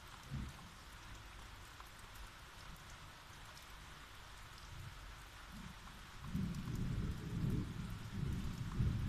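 Rain falling steadily in a thunderstorm, with a low rumble of thunder building about six seconds in and staying loud to the end.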